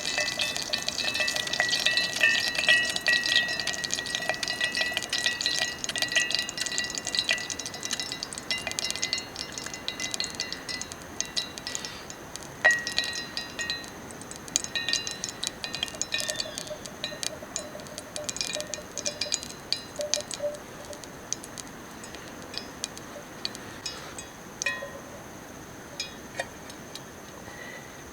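Food frying in a pan over a campfire: a dense sizzling crackle with sharp pops, busiest at first and thinning out over the second half.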